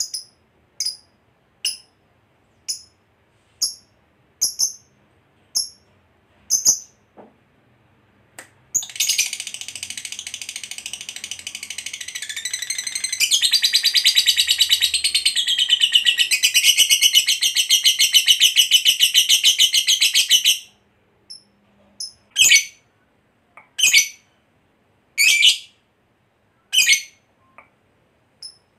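Lovebird calling: short, sharp, high chirps about once a second. About nine seconds in, it breaks into a long, rapid chattering trill (the 'ngekek panjang' prized in fighter lovebirds) that grows louder halfway through and stops suddenly about twenty seconds in, then a few more spaced chirps follow.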